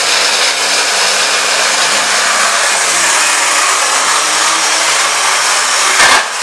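Electric stick blender with a mini chopper bowl running steadily, grinding walnuts into a coarse meal, with a brief break just before the end.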